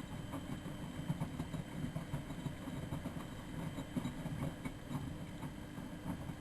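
Miele Novotronic W914 washing machine running a boil wash: a steady low motor hum as the drum turns, with many small irregular clicks and knocks on top.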